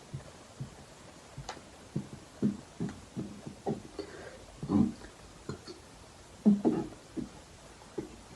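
A woman making a string of short, low throat sounds at irregular intervals while working up burps, with two louder ones about five and six and a half seconds in.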